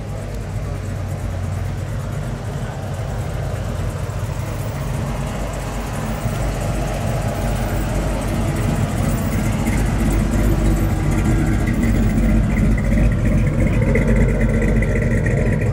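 1955 Chevrolet's engine rumbling at low speed through its dual exhaust as the car creeps past at walking pace. It grows louder over the second half.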